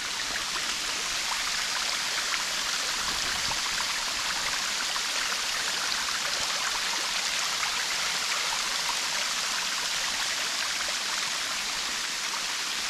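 Waterfall seen from its top edge: a steady, even rush of falling water.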